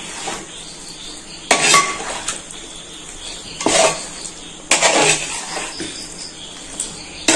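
Metal spoon clanking and scraping against a cooking pot, in a few short bursts about a second or two apart.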